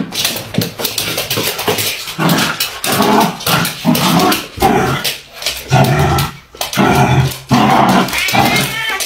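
A puppy growling in repeated short bursts while play-fighting with a cat.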